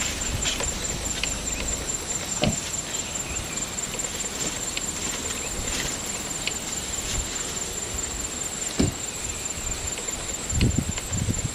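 Asian elephant feeding on leafy plants: scattered snaps and crackles of leaves and stems being torn off and chewed, with a few low thuds near the end, over outdoor background with a steady high hum.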